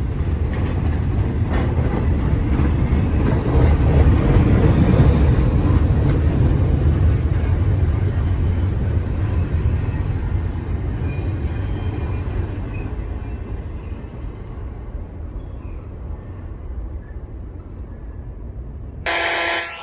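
Norfolk Southern freight train cars rolling past in strong wind, a steady rumble with faint wheel clicks that peaks and then slowly fades as the train moves off. Near the end a short electronic tone sounds from the railroad radio scanner as a trackside defect detector keys up.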